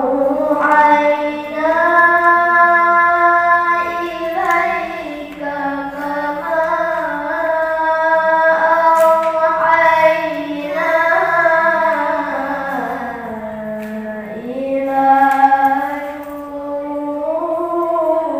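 A single high voice reciting the Quran in the melodic tilawah style, drawing out long held notes with ornamented turns and pitch glides, in a few long phrases with brief breaths between them.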